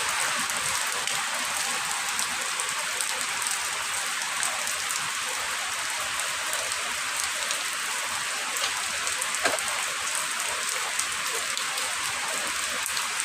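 Steady rain falling: an even hiss peppered with many small drop ticks, with one sharper drop hit about nine and a half seconds in.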